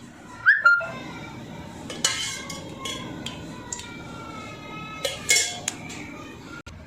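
Metal spoon and steel vessels clinking and scraping as cooking oil is spooned into a pan to start the tempering. About half a second in there is a short rising squeak, and a few sharper clinks come later.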